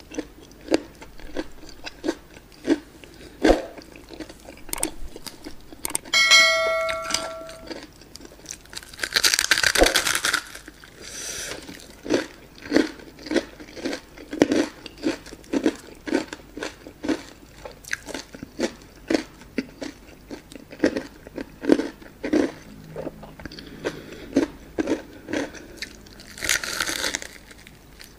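Close-miked chewing and crunching of a breaded fried chicken drumstick coated in cheddar cheese sauce: steady wet chewing clicks, with louder crunchy bites about nine seconds in and again near the end. A brief ringing tone sounds about six seconds in.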